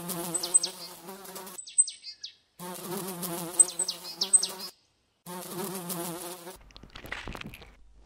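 Fly buzzing in three bursts with short breaks between them, its pitch wobbling, with short high chirps over it. Near the end comes a brief, fainter rustling noise.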